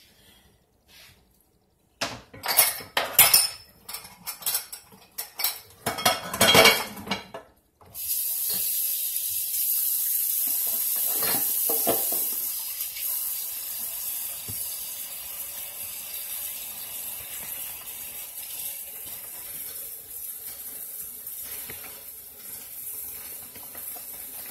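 Dishes and pots clattering for about six seconds, then a steady hiss of water running from a kitchen tap that slowly gets quieter.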